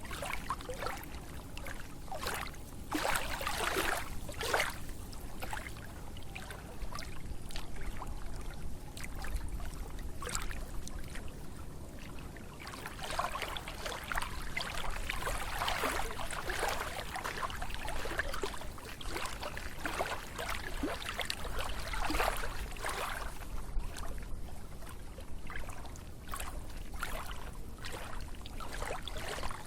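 Water splashing and trickling in irregular bursts, busiest around the middle.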